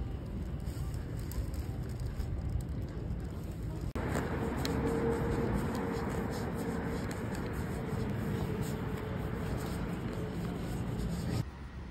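Street ambience with a low, steady traffic rumble. The background changes abruptly about four seconds in and again near the end.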